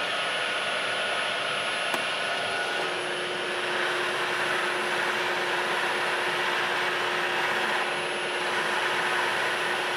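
Milling machine spindle running with a 3/4-inch end mill plunging into a metal plate, opening a drilled hole out to size. The cutting noise grows louder and a steady hum joins it about three seconds in, with a single click shortly before.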